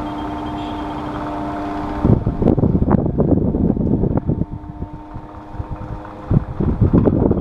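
Electric fan running with a steady motor hum. About two seconds in, loud, uneven gusts of air noise break in, ease off for a moment, and come back near the end.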